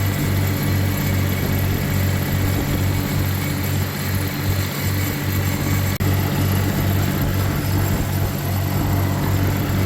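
Tractor engine running steadily under load while mowing tall cereal rye, a low pulsing hum with a brief dropout about six seconds in.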